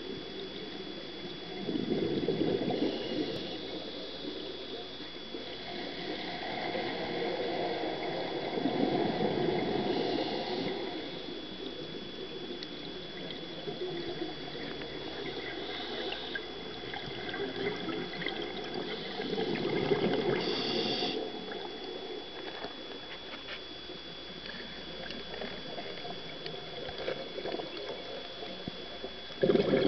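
Scuba diver's regulator breathing heard underwater through the camera housing: bubbling exhalations swell up several times, with a faint steady high tone underneath.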